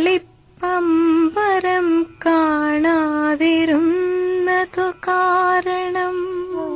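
A woman humming a slow, wordless melody with vibrato. She pauses briefly between phrases.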